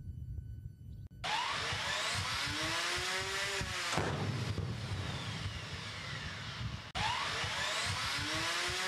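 Rushing roar of a BrahMos missile launch and flight, coming in sharply just over a second in after a low rumble, with whistling tones that rise and then fall as it passes. It cuts out briefly near the end and the same passage starts over.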